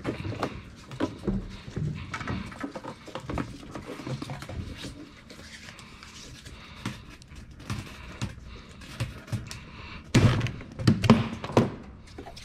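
Plastic fuel pump and jet pump assembly being worked loose inside a race car's rubber fuel cell bladder: scattered small clicks and knocks of handling. About ten seconds in comes a burst of louder knocks and scrapes as the assembly is pulled out of the cell.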